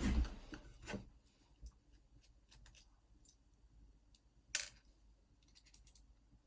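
Small metal clicks and rubbing from handling an Assa Twin 6000 lock and its pick tools, with one sharp clink about four and a half seconds in and a quick run of light clicks just after.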